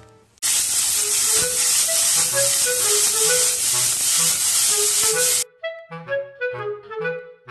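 Loud sizzling of bean sprouts stir-frying in a wok over background music with a light melody. The sizzling starts about half a second in and cuts off suddenly about five and a half seconds in, leaving the tune alone.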